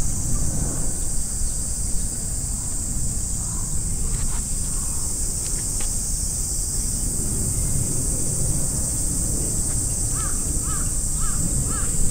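Outdoor park ambience: a steady high-pitched drone and a low rumble, with a bird calling in quick repeated notes near the end.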